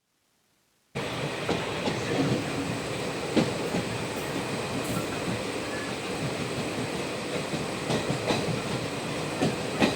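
Train rolling along the track: a steady rumble with irregular sharp clicks from the rails, starting after about a second of silence.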